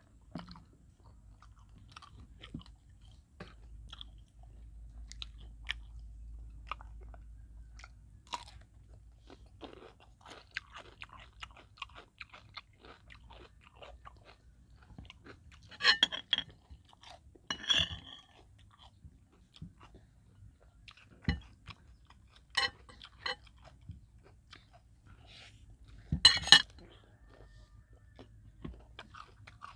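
Close chewing and crunching of fried rat and raw vegetables such as cucumber and lettuce: steady small crackling chews, with loud crisp bites twice about halfway through and the loudest near the end.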